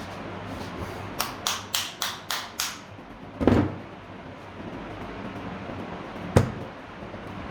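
Knocks and clicks from work on a ceiling fan during a bearing repair: a quick run of about six clicks, roughly four a second, then a louder thump, and near the end a single sharp knock, over a steady background hiss.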